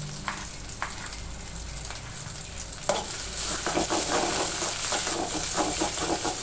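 Onions, green chillies and curry leaves sizzling in oil in a metal pan. In the first seconds a few knife taps on a cutting board; from about three seconds in the sizzling grows louder as the frying is stirred with a knife, its blade scraping and knocking against the pan.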